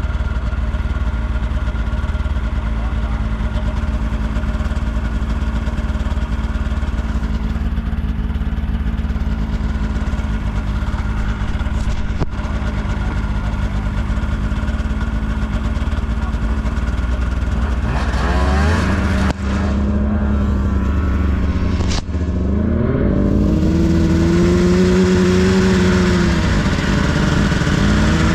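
Off-road vehicle engine running steadily at a constant pitch, then revving up and varying in speed about two-thirds of the way through, with two brief drops in sound.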